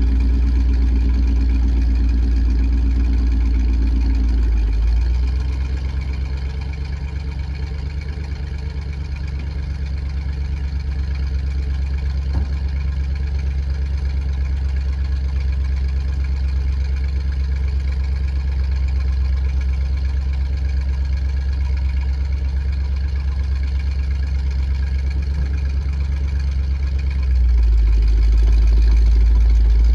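1975 Chevrolet C65 truck's engine idling while the raised dump bed is let down on its hoist. The engine note drops and softens about five seconds in, then returns to its earlier, fuller sound near the end, once the bed is down.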